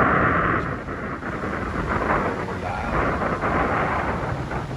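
Wind buffeting the microphone: a steady rushing noise with uneven low rumbling.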